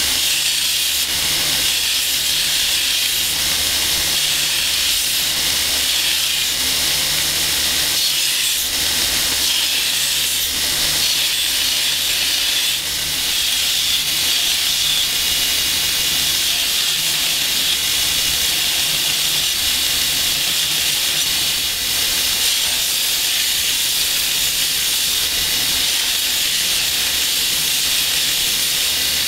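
Belt grinder running with an old 36-grit belt, grinding the bevel into a forged steel blade: a steady, loud hiss of coarse abrasive on steel over the steady hum of the grinder's motor.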